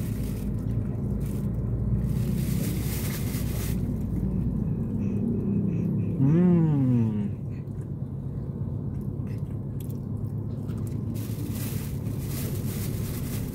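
Steady low hum of a car's engine idling, heard inside the cabin, with some light rustling. About six seconds in, a person gives a single hummed 'mmm' lasting about a second that rises and then falls in pitch.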